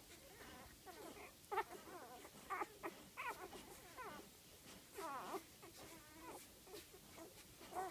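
Five-day-old golden retriever puppies squeaking and whimpering as they nurse: a string of short, high calls that bend up and down, with one longer whine about five seconds in.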